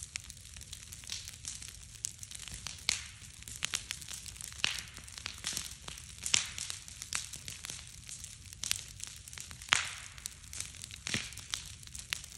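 Large bonfire of stacked split wood crackling and popping, with irregular sharp snaps over a steady low rumble of the flames. The loudest snap comes a little under ten seconds in.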